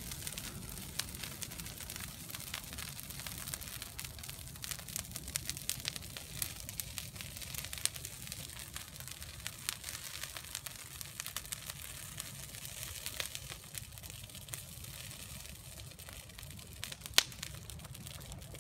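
Christmas tree burning in a metal barrel, crackling and popping steadily, with one sharper pop near the end.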